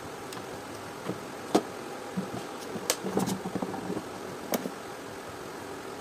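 Hands handling a plastic steam iron and its rubber power cord: a scattering of light clicks and knocks, with a quick cluster of them in the middle, over a steady background hiss.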